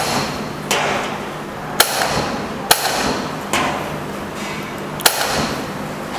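A soda fountain machine's tap clicks open and shut about five times as a small glass is held under it. Each click is followed by a fading hiss of carbonated soda spraying into the glass. A low steady hum runs underneath.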